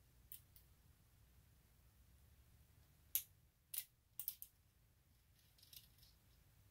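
Steel pick tool clicking and scraping against metal inside a revolver frame while digging out a small broken spring: a few faint, sharp clicks, louder about three to four seconds in, with faint scratching near the end.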